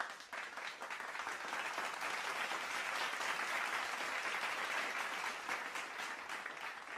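Hand screwdriver driving the screws that close an angle grinder's cover: a steady, dense crackle of fine clicks.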